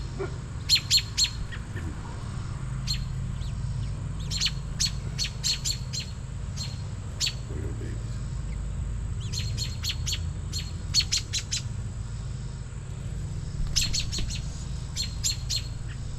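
Female American robin giving rapid series of short, sharp alarm calls in several bouts, the sign of a parent bird agitated near her nest. A steady low rumble runs underneath.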